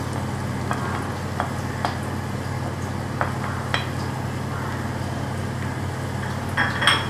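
Onions frying in oil in a pressure cooker as garlic-ginger paste is stirred in, with a wooden spoon tapping and scraping against the pot now and then. A steady low hum runs underneath, and there is a brief louder clatter near the end.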